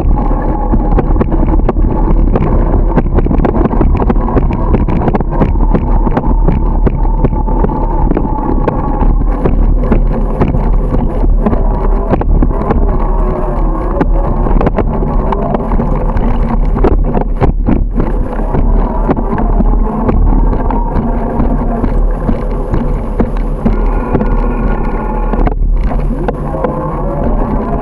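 Wind rushing over the microphone of a camera riding along on a bicycle, a loud steady rumble, with frequent small knocks and rattles running through it.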